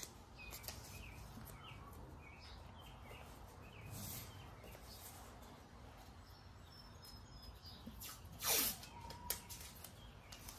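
Blue painter's tape being handled and pressed onto a car door, with faint short chirps. About eight and a half seconds in comes one short rip of tape pulled off the roll.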